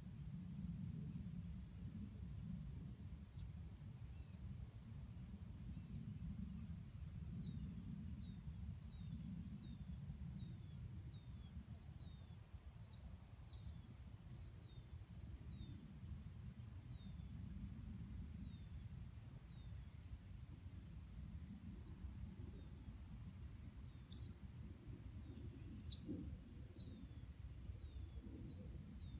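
A small creature chirping over and over, short high notes that dip slightly in pitch, somewhat more than one a second, over a steady low rumble.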